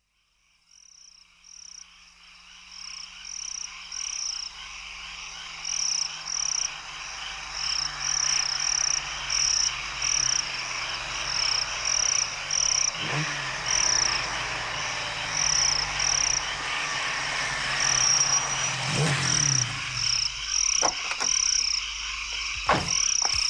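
A steady chorus of high, evenly repeated chirps, about two a second, typical of night frogs or insects. It fades in from silence at the start, over a low hum, with a few soft knocks near the end.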